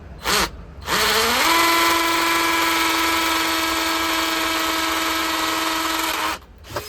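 Power drill giving a short burst, then spinning up with a rising whine about a second in and running at a steady pitch for about five seconds before stopping. It is drilling or driving screws to mount the Ring doorbell.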